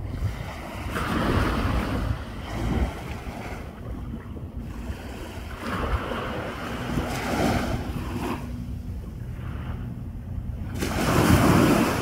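Small waves washing onto a sandy beach, the surf swelling and fading about three times, loudest near the end, with wind rumbling on the microphone.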